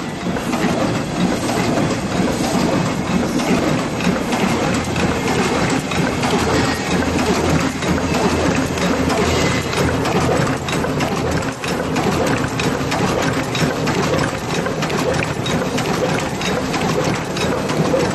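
OCS12 paper cup forming machine running a test batch of 6 oz cups: a loud, steady mechanical clatter made of many rapid clicks.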